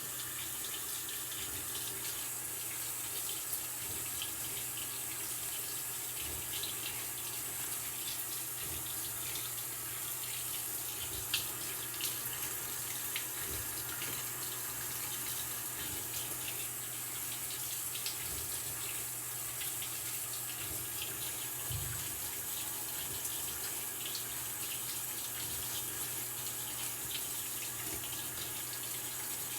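Maytag Bravos XL top-load washing machine with water rushing steadily into the tub, under a steady low hum, with a few light knocks.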